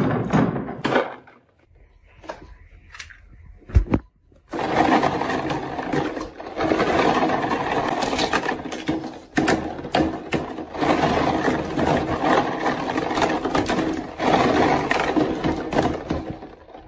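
Marbles dropping off a wooden slope into a tub of thick red gel. After a quiet spell with one thump, a hand squelches and stirs through the gel from about four seconds in until just before the end, a continuous wet, crackly noise.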